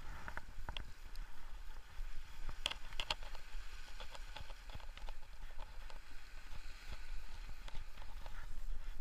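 Small sea waves washing against shoreline rocks, with wind rumbling on the microphone and scattered light clicks.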